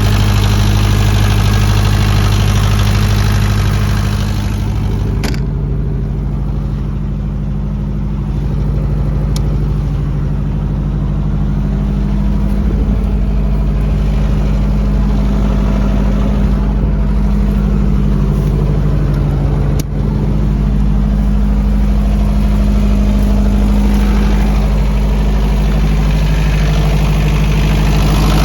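Diesel generator engine running steadily at constant speed. About five seconds in, a lower hum and some of the hiss drop away, leaving the steady engine note, and there is a single short click later on.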